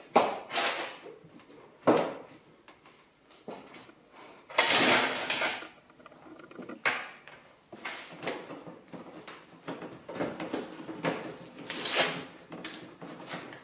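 Plastic trim and bumper parts being handled and fitted onto the Audi S3 8L's front end: sharp clicks and knocks, the loudest right at the start, with a longer scraping rustle about four and a half seconds in.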